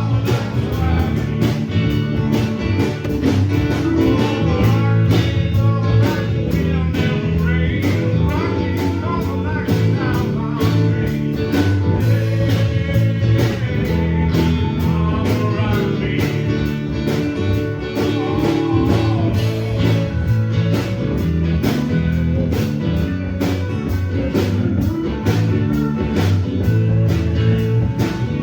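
A band playing a blues-rock song with guitar, bass and drums keeping a steady beat, and a voice singing over it.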